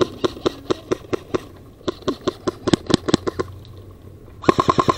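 Airsoft guns firing: scattered single shots, with a quick run of shots about three seconds in, then a rapid, even full-auto burst from an electric airsoft rifle starting near the end.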